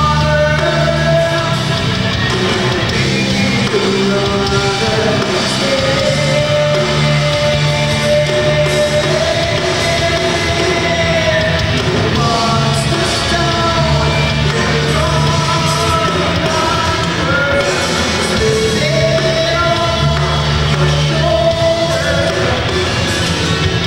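Live rock band playing through a PA: electric guitars, bass guitar and drum kit, with a lead singer's sustained, wavering vocal lines over the top.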